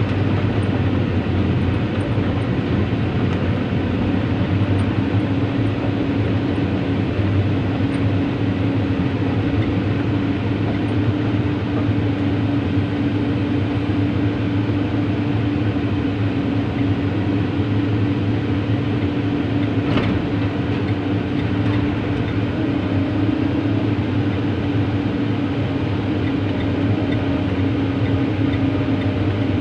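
Heavy excavator diesel engine running steadily at constant speed, with an even low hum throughout and one brief click about twenty seconds in.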